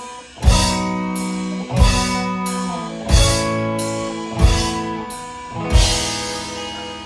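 Live band with guitar and drum kit playing five accented chord hits about 1.3 seconds apart, each struck with a cymbal crash and left ringing; the last is let ring and fades away.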